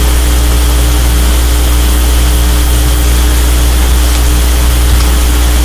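Loud steady low-pitched hum with a faint even hiss, with no change throughout: the constant background noise of the recording.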